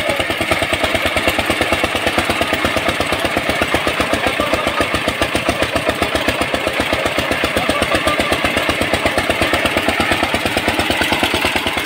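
Power tiller's single-cylinder diesel engine running steadily with an even, rapid beat, driving a home-made water pump under load. Water rushes from the pump's outlet pipe alongside the engine.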